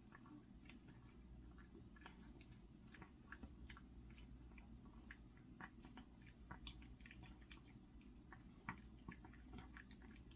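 A cat chewing and eating, heard as faint, irregular small clicks and smacks over a low steady hum; the cat is eating after having teeth extracted for stomatitis.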